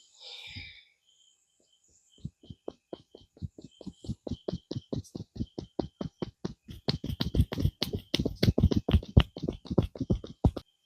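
Massage percussion: hands rapidly tapping and slapping on a person's body, as in an Indian head massage. The strikes start sparse and grow faster and louder, reaching several a second before they stop.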